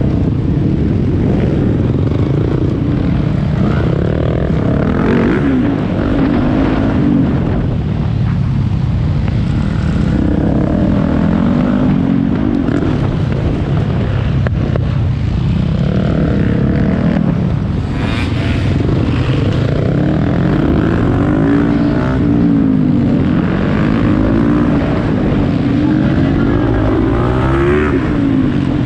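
Yamaha YZ450F single-cylinder four-stroke engine racing under full load, its revs climbing and dropping over and over through gear changes and corners, with steady wind rush over the camera microphone.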